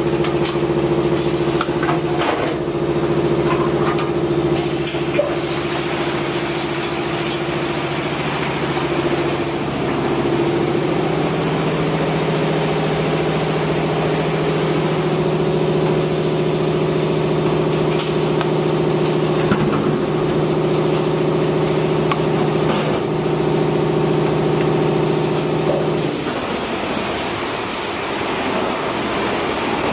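5-gallon bottled water filling and capping line running: a steady machine hum with hissing that comes and goes. The hum stops a few seconds before the end.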